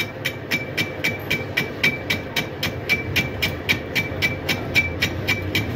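Steady metallic ticking, about four ticks a second, each with a brief high ring, over a low machine hum.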